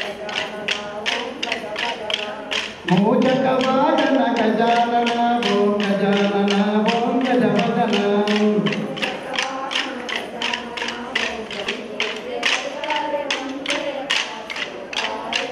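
Kolata stick dance: short wooden sticks struck together in a quick, even rhythm. A group sings a folk song over the clacking, loudest from about three seconds in until about nine seconds, then fainter.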